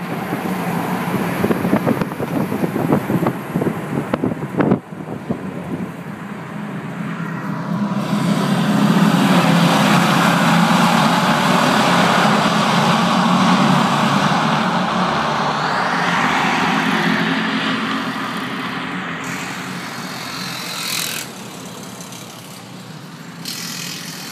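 A pace truck running on a speedway track, heard from inside its cab: engine and road noise, with a run of sharp knocks in the first few seconds. The noise swells to its loudest in the middle and eases off toward the end.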